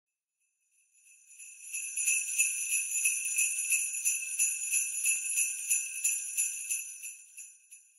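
Sleigh bells jingling in a steady shaking rhythm, fading in over the first couple of seconds and fading out near the end.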